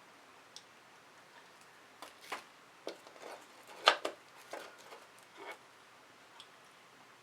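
A toothed painting spatula scraping and knocking on a stretched canvas in about six short strokes, the loudest a little before four seconds in.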